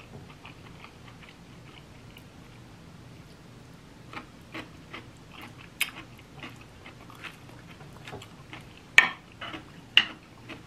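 Close-miked mouth sounds of a person chewing a spoonful of ackee and rice: soft wet clicks and smacks, faint at first and growing more frequent about halfway through, with two sharper clicks near the end.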